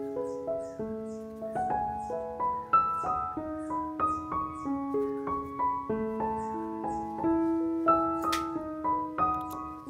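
Background piano music, a melody moving note by note over held lower notes.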